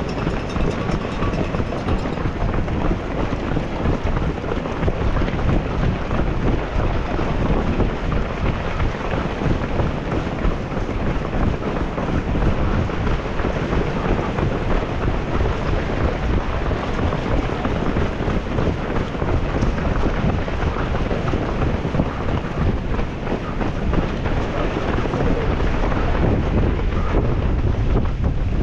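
Strong wind buffeting the microphone: a loud, continuous, low rushing noise with no break.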